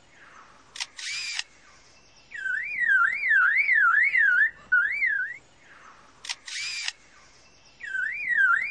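Superb lyrebird mimicking a camera shutter, a sharp click and a short burst, then a car alarm, a whistled tone sweeping up and down about three times a second. The sequence is heard twice.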